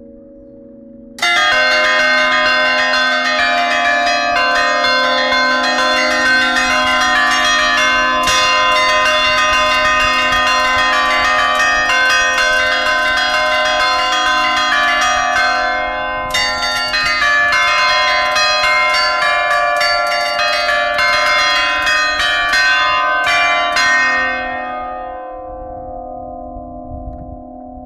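Church bells ringing a rapid peal, struck over and over starting about a second in. The peal breaks off briefly about halfway and stops near the end, leaving the low hum of the bells dying away.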